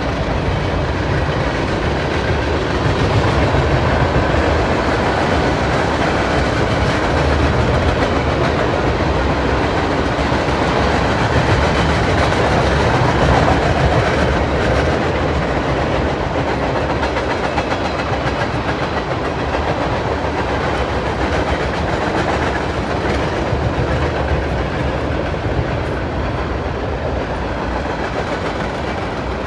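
Railway cars rolling past, their wheels running steadily over the rails as a continuous loud noise.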